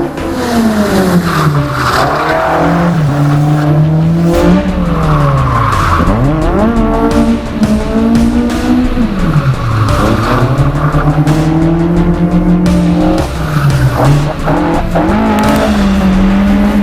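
Honda F20C inline-four on individual throttle bodies in a drifted Toyota AE86, its revs repeatedly dropping and then climbing sharply again, with tyres squealing in bursts.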